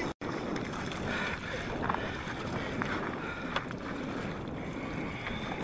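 Wind rushing over the microphone, with icy lake water and broken ice floes sloshing around a car that has gone through the ice as a man wades beside it. A few short knocks come through.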